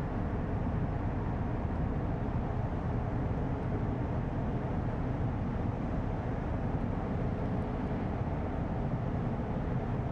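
Diesel engine of a passing inland cargo vessel: a steady low drone with faint steady tones, mixed with rumbling noise.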